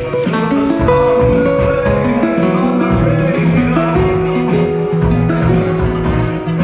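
Background music led by plucked and strummed guitar, with a steady beat.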